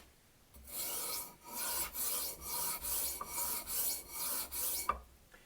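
Steel knife blade stroked back and forth on a dry sharpening stone, about eight strokes at roughly two a second, starting about half a second in.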